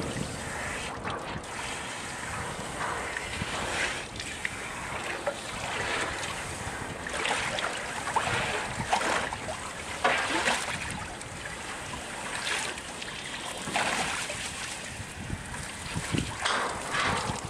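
Brown bear wading and splashing in a galvanised metal water trough, with irregular splashes and sloshing water.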